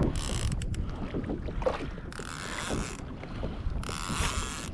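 Fishing reel working under load during the fight with a hooked fish, in three spells of mechanical buzzing, each about a second long.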